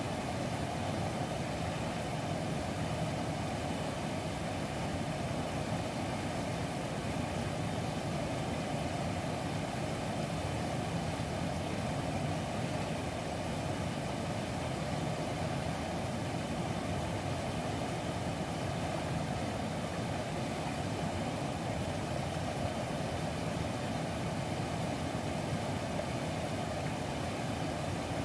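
Steady rushing of a fast-flowing mountain river over rapids, an even, unbroken wash of water noise.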